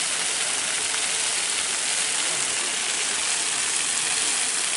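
Many water jets of a large fountain splashing down into its basin: a steady, even hiss of falling water.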